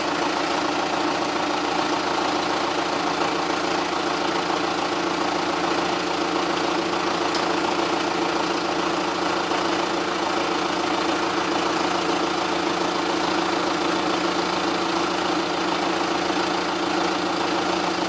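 Steady engine idle from a John Deere 310SE backhoe and a pickup truck running side by side, an even drone that does not change.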